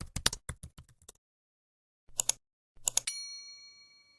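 Rapid keyboard typing clicks for about a second, then a pause and two short bursts of keystrokes, followed about three seconds in by a single bright bell ding that rings on and fades away.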